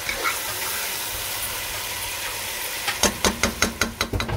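Chicken and vegetable stir-fry sizzling in a hot non-stick pan just after vinegar goes in. In the last second and a half a spatula stirs the food, giving a rapid run of about ten knocks against the pan.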